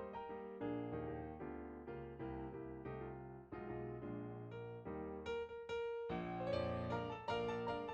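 Instrumental background music led by piano, a steady flow of struck notes.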